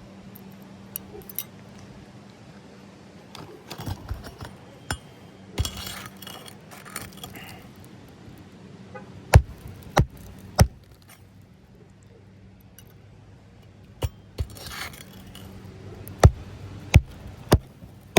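Hammer blows on roofing nails while a shingle is replaced: three sharp strikes a little over half a second apart, then two, then three more near the end, with scraping and rustling of shingles between the groups.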